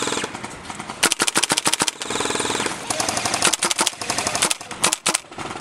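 Airsoft guns firing on full auto: a rapid string of sharp cracks about a second in, a fast buzzing burst just after two seconds, then more shots over the next two seconds.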